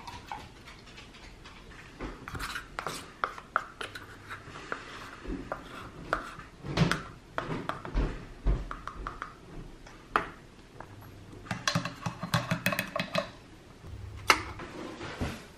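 Kitchen handling sounds: clinks, taps and scrapes of containers and a spoon. About twelve seconds in there is a quick run of rattling scrapes, and near the end a single sharp click.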